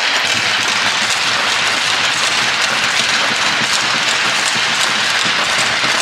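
Crowd applauding, many hands clapping at once in a dense, steady patter that starts abruptly and holds at an even level.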